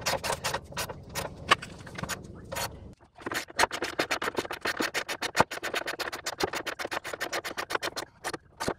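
Socket ratchet clicking as a 15 mm nut is run down and tightened: irregular bunches of clicks, then after a brief pause about three seconds in, a fast, even run of about eight clicks a second.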